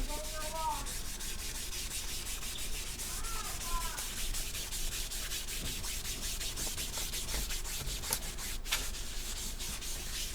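Chalk scratching and tapping on a chalkboard in quick strokes as words are written. A bird chirps briefly near the start and again about three and a half seconds in.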